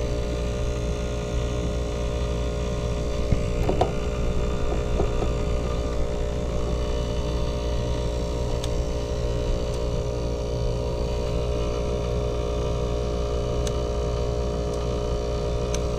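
ClimateMaster geothermal heat pump and its flow-center circulating pumps running at full load, a steady hum made of several constant tones over a low rumble. The unit is running normally, with no sign of the low-pressure fault it had locked out on.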